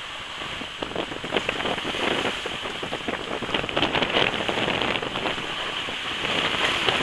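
Water rushing and splashing along the hull of an F27 Corsair trimaran sailing at about 9 knots through choppy water: a crackling hiss of spray that grows louder towards the end.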